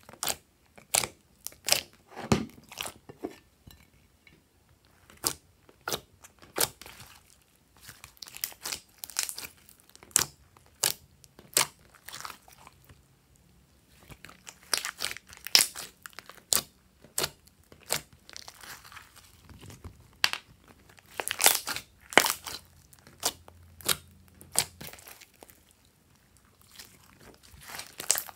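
Glossy slime being kneaded, pressed and stretched by hand, giving irregular sharp pops and clicks with short quieter pauses.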